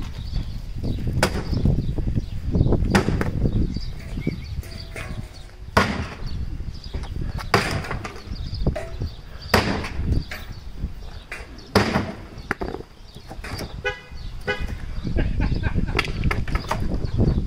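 Sledgehammer blows smashing a small wooden cabinet apart, a sharp crack of breaking wood roughly every two seconds.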